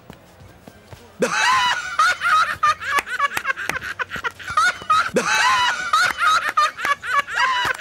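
Two men burst out laughing about a second in and keep laughing loudly.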